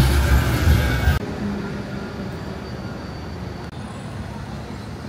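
City street traffic noise: a loud, low vehicle rumble that cuts off abruptly about a second in, then a steadier, quieter street hum.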